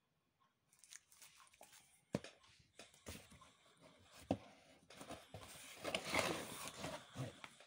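A hand rummaging in a cardboard box, rustling and crinkling the packaging around the comics, with two sharp knocks; the rustling is loudest about a second before the end.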